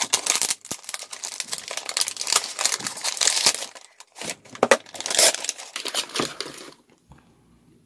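A package being opened by hand: packaging crinkling and tearing in two long stretches with a short pause between them, stopping shortly before the end.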